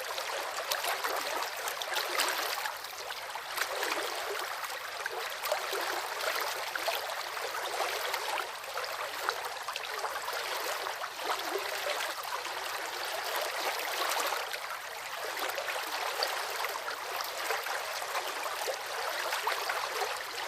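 River water flowing and splashing over rocks: a steady, bright rushing with many small splashes.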